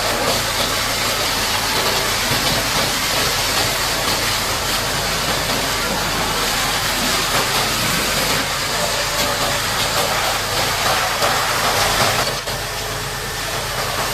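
High-pressure water jet washing mud off a Caterpillar D8T bulldozer: a steady hiss over a low engine hum, dropping in level about twelve seconds in.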